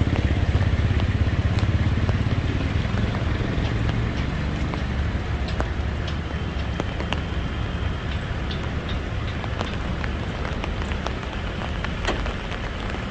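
Heavy rain pouring down, an even hiss with many scattered sharp drop hits. A low rumble is strong at first and fades over the first few seconds.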